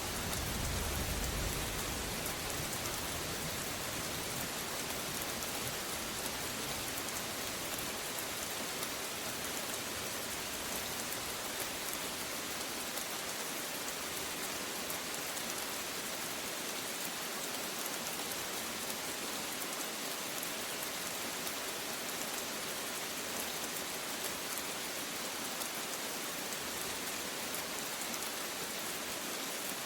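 Steady rain falling, an even hiss of drops. A low thunder rumble dies away in the first second or two.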